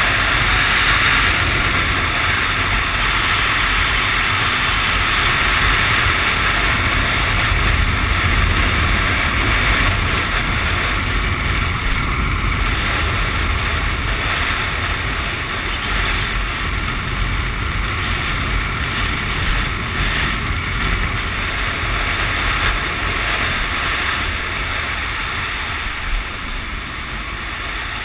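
Harley-Davidson Sportster chopper's V-twin engine running while the bike cruises along a road, mixed with steady wind rush on the microphone. The sound grows a little quieter near the end.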